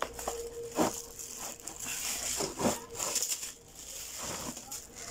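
Clear plastic packaging crinkling and rustling as it is handled, with a few sharper crackles.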